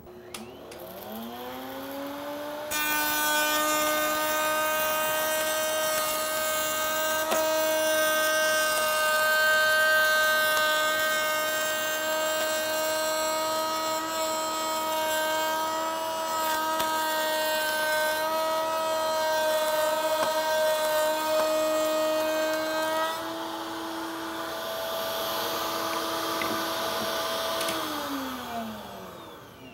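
Table-mounted router starting up, its whine rising to a steady pitch. A slot-cutter bit then cuts a slot along the edge of a board for about twenty seconds, adding a rushing cutting noise over the whine. After that the router runs free and winds down with a falling whine near the end.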